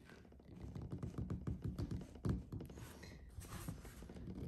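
Oil filter cutter being turned by hand around a steel spin-on oil filter canister, giving a run of small, irregular clicks and taps.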